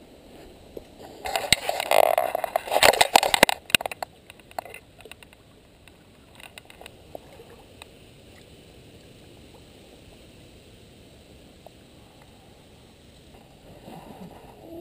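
A hooked common carp splashing and thrashing in shallow water in a few loud bursts over the first few seconds, then quieter scattered splashes, leaving a faint steady hiss.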